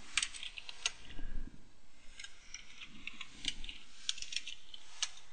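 Typing on a computer keyboard: irregular key clicks in short runs.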